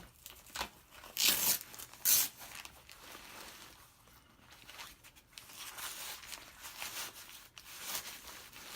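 Hook-and-loop (Velcro) fastening on a ballistic vest carrier ripped open twice in quick succession, followed by nylon fabric and a soft armour panel rustling and sliding as they are handled.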